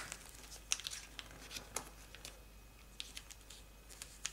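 Soft rustling of thick, multi-layered origami paper being folded and its creases pressed flat by fingers, with scattered small clicks and crinkles.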